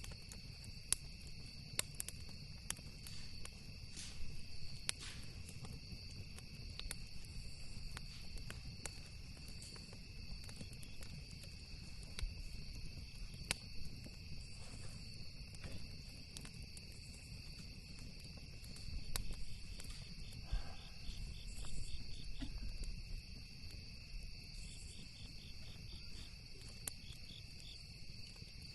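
Campfire crackling with scattered sharp pops, over a steady high chirring of crickets and a low continuous rumble.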